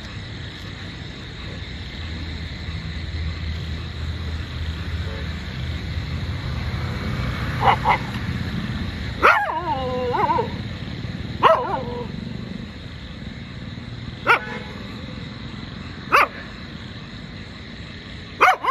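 Two female street dogs squaring off in a fight: one barks in short, sharp single barks every two to three seconds through the second half, and one bark trails into a whining yelp.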